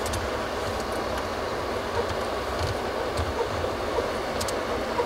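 A moving vehicle's steady rumble and road noise, with scattered small clicks and rattles.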